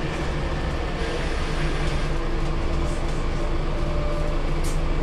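Scania L94UB city bus heard from inside the cabin: a steady engine and road drone with faint light rattles from the interior fittings. A short high hiss about four and a half seconds in.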